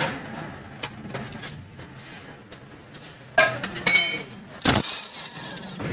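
Metal motorcycle engine parts clinking and knocking together as they are handled and set down: several sharp clinks, one ringing briefly, and a louder knock about three-quarters of the way through.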